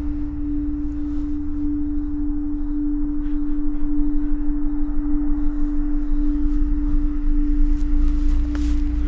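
A single steady drone tone held at one pitch, pulsing slightly, over a low rumble: an eerie sustained note from a horror film score.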